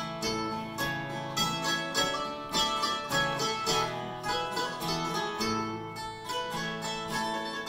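Instrumental passage of a folk song: an acoustic guitar strumming along with another plucked string instrument, with no singing.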